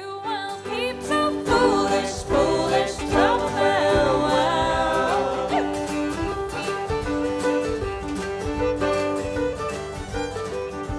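Live folk band: a fiddle plays the lead line with slides and wavering notes over a drum kit with cymbals and sustained lower notes.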